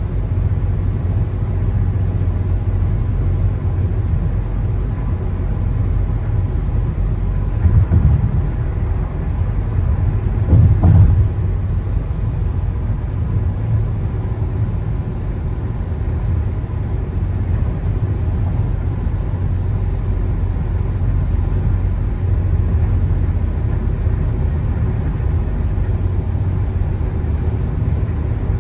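Car driving along the road: a steady low rumble of engine and road noise, swelling briefly louder twice, about eight and eleven seconds in.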